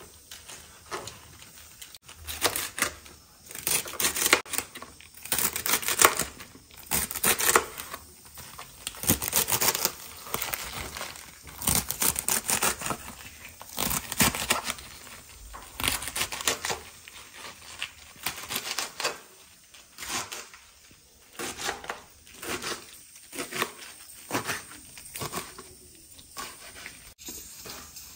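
A large kitchen knife chopping crisp leafy greens with thick stems on a plastic cutting board: runs of quick crunchy strokes with short pauses between them, the blade knocking on the board.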